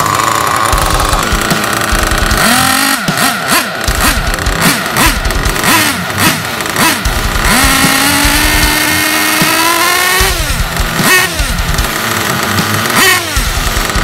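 Hobao Hyper Truggy SS's size-30 nitro engine running on the stand during break-in, blipped with the throttle: short revs that rise and drop back in quick succession, with one long rev climbing for about two seconds near the middle before falling back to idle.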